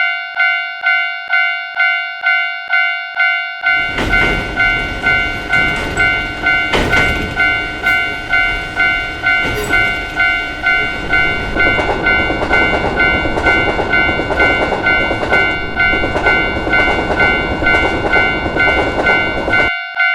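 Railway level-crossing warning bell ringing steadily, about two and a half strikes a second. About four seconds in, a passing train joins it with rumble and wheel clatter and a few sharp clanks under the bell. The train noise cuts off just before the end.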